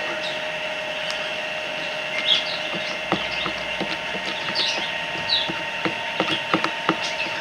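Slime mixture being stirred and worked in a container: irregular sticky clicks and crackles that come thicker from about halfway through.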